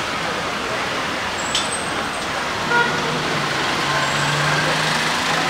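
Steady background din of road traffic and city noise.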